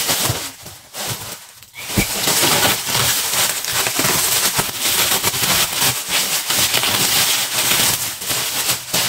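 Plastic packaging being crinkled and pulled apart by hand as a parcel is unwrapped: a dense run of crackling rustles that sets in about two seconds in and goes on until near the end.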